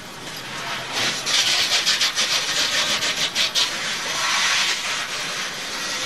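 Onboard audio from inside a NASCAR stock car as it slides sideways in a crash: a loud rushing, scraping noise of tyres scrubbing and the car skidding, swelling about a second in and fluttering rapidly before easing a little.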